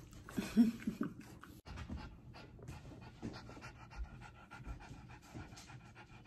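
A dog panting with quick, even breaths, with a short louder sound about half a second in.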